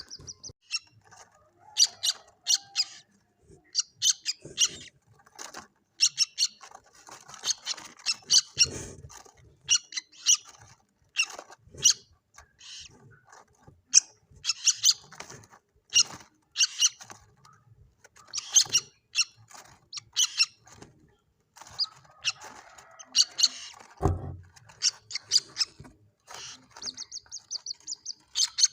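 Juvenile common moorhen (mandar batu) calling: short, sharp high chirps repeated in quick irregular clusters, with a rapid trill near the end. A brief low thump comes a few seconds before the end.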